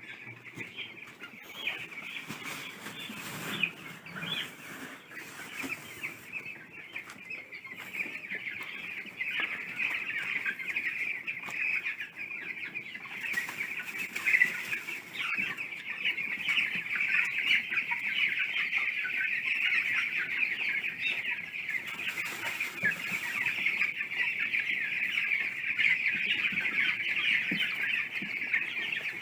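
A large flock of chickens clucking and chattering continuously, many birds at once, growing louder about a quarter of the way in.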